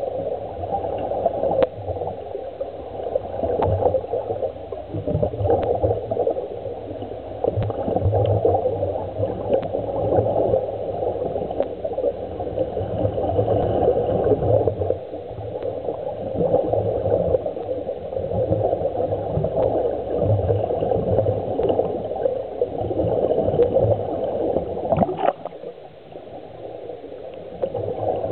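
Continuous underwater bubbling and gurgling of air spilling out of surface-supplied walking-dive helmets, heard underwater, briefly quieter about three-quarters of the way through.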